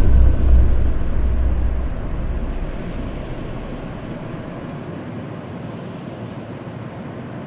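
Dark ambient horror sound design: a deep low boom dies away over the first few seconds, leaving a steady, quieter noise like wind.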